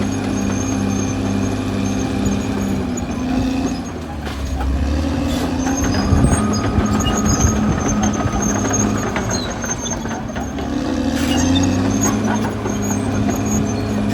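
Caterpillar D6R XL bulldozer's diesel engine running. Its note drops about three seconds in and turns louder and rougher, then climbs back to a steady pitch near the end, with a few sharp clicks along the way.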